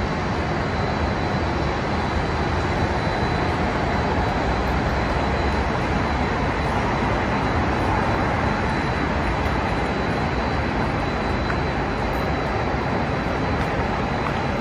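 Steady outdoor city background noise: an even hiss and low rumble with no distinct events, and a faint high steady tone above it.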